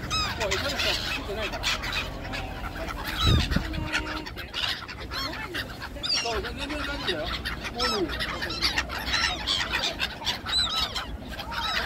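A flock of black-headed gulls calling constantly, many short overlapping cries at once. A brief low thump comes about three seconds in.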